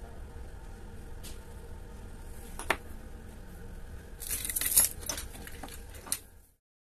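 Small metallic clicks and clinks of a hand-setting tool pressing the hands onto a Bvlgari automatic watch's centre post: one sharp click nearly three seconds in, then a cluster of clinks a second and a half later, over a low steady hum. The sound cuts off just before the end.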